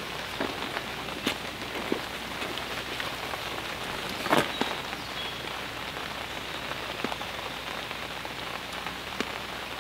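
Steady rain falling on the lake and the bank, with a few sharp taps on top of it. The loudest tap comes a little under halfway through.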